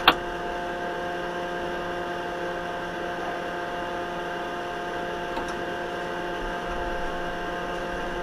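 Steady electrical hum of a standing tram's equipment in the driver's cab, several steady tones at once, with one sharp click just after the start.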